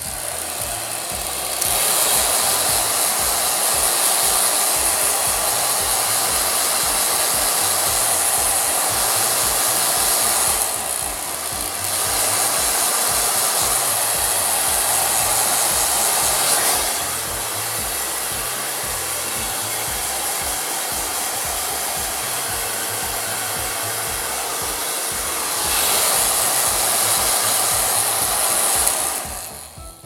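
Handheld hair dryer blowing steadily, its level stepping louder and quieter a few times, then switching off just before the end.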